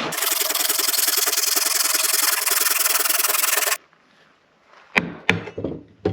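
Fine-toothed hand saw cutting wood in rapid, short, even strokes, stopping abruptly a little before four seconds in. A couple of sharp wooden knocks follow near the end.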